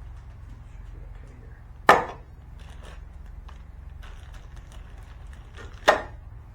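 Two sharp knocks about four seconds apart, with light clicks and small rattles between them, as small hardware and parts are picked up and set down, over a steady low hum.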